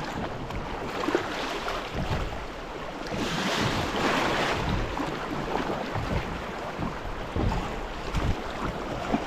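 River water rushing and splashing around a kayak, swelling for a couple of seconds about three seconds in, with wind buffeting the microphone as low rumbles.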